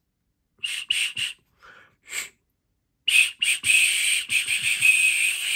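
Small metal keychain whistle blown with the lips wrapped around its whole body. Three short shrill toots about a second in and two weaker ones after them, then a long, wavering blast that starts just past halfway.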